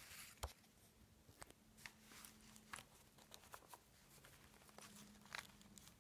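Near silence, broken by a few faint paper rustles and light clicks as the pages of a handmade paper journal are handled.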